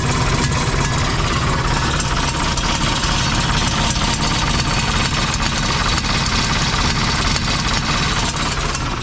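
Tractor engine running steadily, with an extra mechanical noise from the alternator guard, which has broken loose at its weld.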